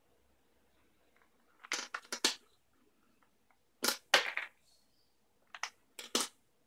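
Small plastic toy parts being handled and fitted together, giving sharp plastic clicks and taps in four short clusters, with quiet between them.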